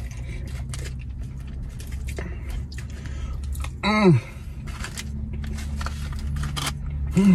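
Close-up eating sounds: chewing and the clicks of a plastic fork against a paper food tray, over a steady low hum in the car cabin. About four seconds in there is a short falling "mm" of enjoyment, and another starts right at the end.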